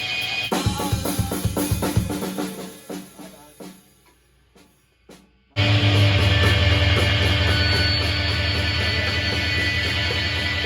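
A rock band playing: a run of loud drum-kit hits rings out into a short pause of about a second and a half, then the full band comes back in suddenly and loudly with guitar and bass held over the drums.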